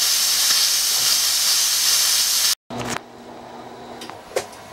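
Compressed air hissing steadily out of a kitchen faucet as the water lines are blown out for winterizing, showing that no water is left in the line. The hiss cuts off abruptly about two and a half seconds in, leaving faint room noise and a light knock near the end.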